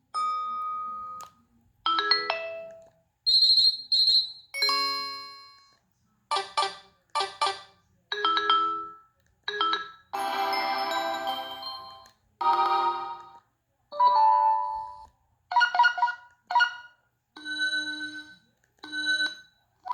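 Preloaded BlackBerry Curve 8310 ringtones and alert tones playing: a string of short electronic chimes and melodic notes at varying pitches, with brief silences between them and one longer jingle about halfway through.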